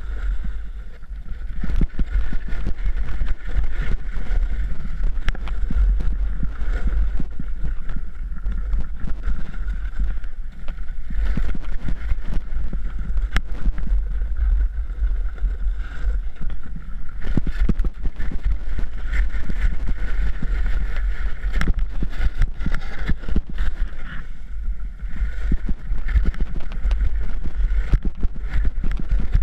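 Wind rumbling on the camera microphone over the hiss and scrape of a snowboard sliding down a slope, with frequent short knocks and chatter as the board crosses bumpy, tracked snow.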